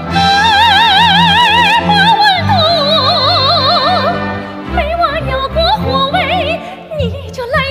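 Female soprano singing a Chinese folk song in a trained concert style, backed by a symphony orchestra. She holds a long high note with wide vibrato for about two seconds, then moves into sliding, ornamented shorter phrases.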